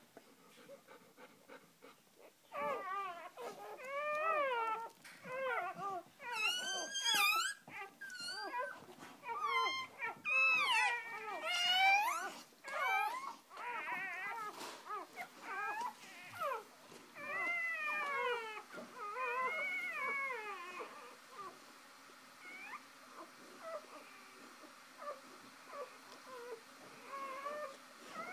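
Newborn puppies squealing and whimpering in a long run of short, high, wavering cries, which thin out to fainter squeaks near the end.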